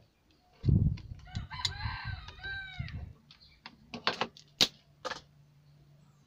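A rooster crows for about two seconds, starting about a second in, just after a heavy thump. Then comes a run of sharp clicks and snaps from a spring-loaded desoldering pump working solder off a CRT TV power-supply board; the loudest is about four and a half seconds in.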